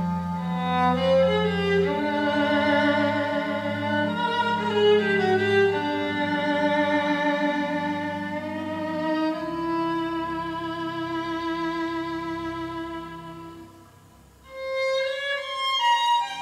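Recorded solo violin with wide vibrato over a low, sustained accompaniment, played back through Western Electric 142A tube amplifiers and large horn loudspeakers. The music thins almost to nothing about fourteen seconds in, then the violin comes back in.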